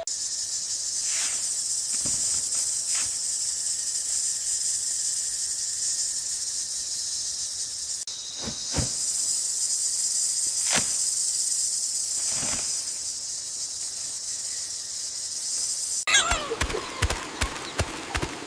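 A steady high-pitched hiss that breaks off briefly about halfway and stops near the end, where a quick run of sharp clicks and knocks takes over.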